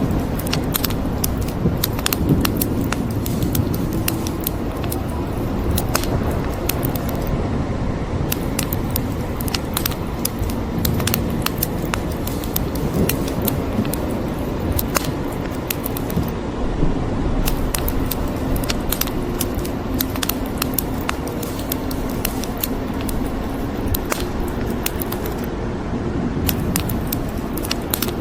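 Wood fire crackling in a fireplace, with frequent irregular sharp pops and snaps over a steady hiss of rain.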